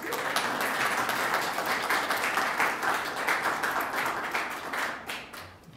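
Audience applauding: dense clapping that dies away near the end.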